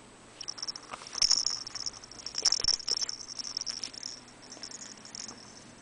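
A soft multicoloured plush baby toy being handled and jiggled up close: irregular high rustling, with a couple of sharp knocks about a second and two and a half seconds in.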